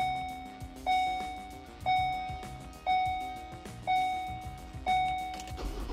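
Ford Transit's dashboard warning chime sounding six times, about once a second, each a single clear ding that fades. Just at the end a low rumble sets in as the engine starts.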